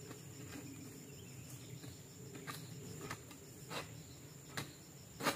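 Faint steady high-pitched insect drone, with scattered light snaps and crackles about once a second and a sharper crack near the end.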